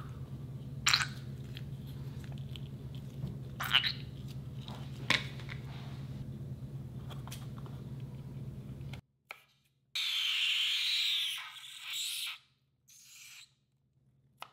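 White glue squeezed out of a rubber balloon into a glass bowl: soft sticky clicks and splats over a steady low hum. After a sudden cut, scissors rasp through a cream-filled balloon, a hissing noise of about two seconds followed by a shorter one.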